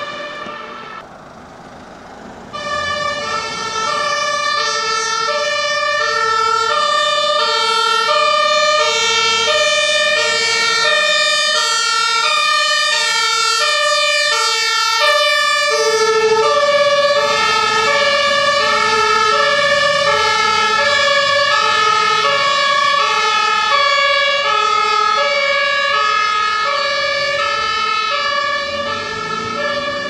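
German two-tone fire-truck siren (Martinshorn) on a GW-L2 logistics truck, alternating between a high and a low note. It starts about two and a half seconds in, after a brief quieter moment, with the truck's engine running underneath.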